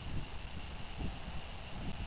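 Wind buffeting the microphone: an uneven low rumble that swells and dips, over a steady hiss.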